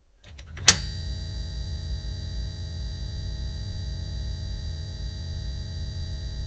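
Failing fluorescent tube starting up: a few quick flickering ticks, then a sharp click as it strikes, followed by a steady electrical buzz and hum with a low rumble underneath. The sound is that of a worn-out tube near the end of its life.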